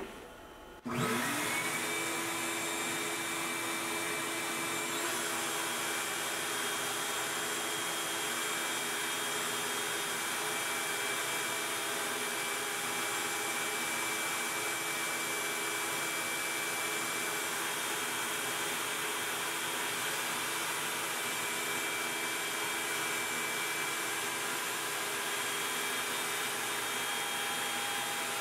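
A shop vacuum on the CNC's dust-collection hose switches on about a second in, spins up and runs steadily. A Makita router motor on the Onefinity CNC joins it, whining as the machine V-carves a grid into the spoil board with a 60-degree bit.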